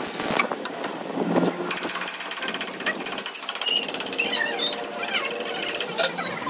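Metal lathe turning the welded axle shaft, with a rapid, steady mechanical rattle from about two seconds in.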